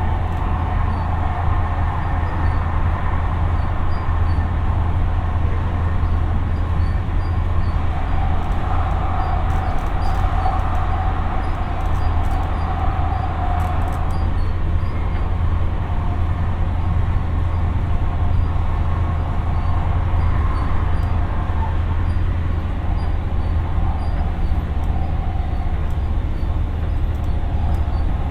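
Siemens P2000 light rail vehicle running at speed: a steady low rumble under a traction motor whine that swells and fades, with a few light clicks.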